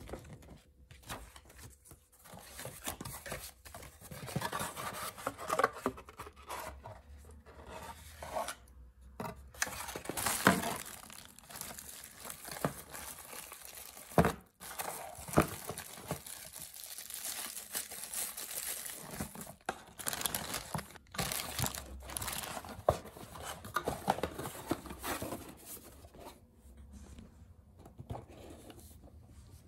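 Packaging being handled and unpacked: a plastic bag crinkling, paper and cardboard rustling and tearing, with scattered small knocks and clicks at an uneven pace.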